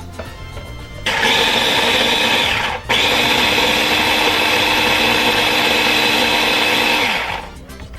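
The electric motor of a countertop kitchen appliance chopping tomatoes. It runs steadily in two goes, stopping for a moment near the three-second mark.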